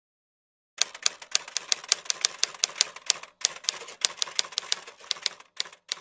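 Typewriter keystroke sound effect: a quick run of sharp key clicks, about six a second, starting about a second in, with two brief pauses.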